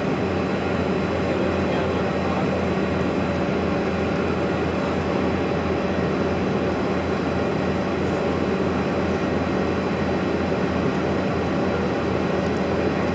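Cabin noise inside a Bombardier CRJ regional jet in its climb after takeoff: the even rushing drone of its rear-mounted GE CF34 turbofans and the airflow, with a steady low hum beneath it.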